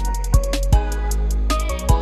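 Trap beat: a sustained deep bass, rapid hi-hat ticks and a few hard drum hits under a pitched melody line.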